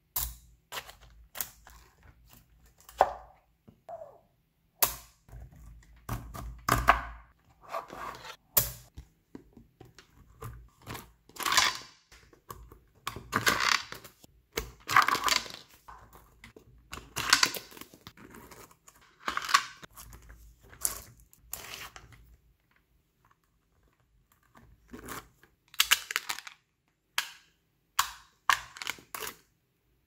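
Small neodymium magnet balls clicking and clacking as slabs of them are pressed and snapped together, with scraping, rustling slides as the block is pushed into shape. The clicks come irregularly, stop for a few seconds about two-thirds of the way through, then return as a few sharp clicks near the end.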